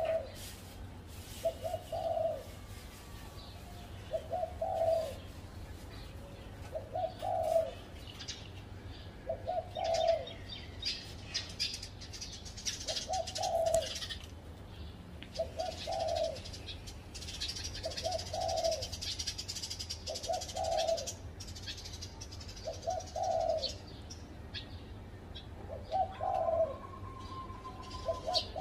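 Spotted dove cooing, a short phrase repeated about every two and a half seconds, about a dozen times. Smaller birds chirp in the background, most busily through the middle.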